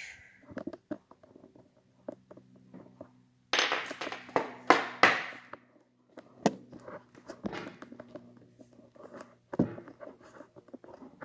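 Small metal parts of a padlock and tools being handled: scattered clicks and taps, with a louder burst of metallic clinks and rattling about three and a half seconds in.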